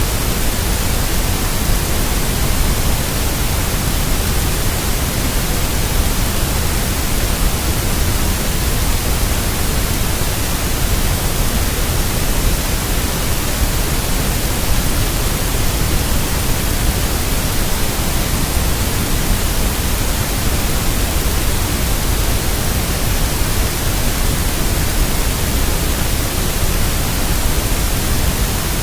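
Loud, unchanging hiss of static noise, spread evenly from low rumble to high hiss, with no rhythm or breaks.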